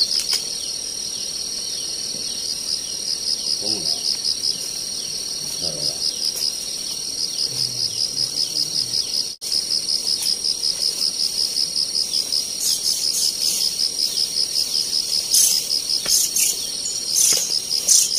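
Insect chorus: a steady, high-pitched, fast-pulsing trill that cuts out briefly about nine seconds in, with a run of sharp clicks near the end.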